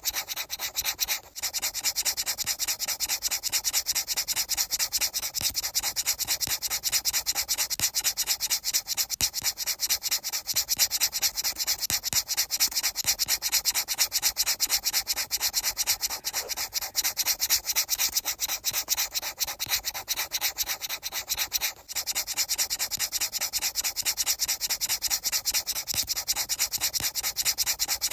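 Rapid, even rubbing strokes, many a second and bright and hissy, that break off briefly twice: about a second in and again past the twenty-second mark.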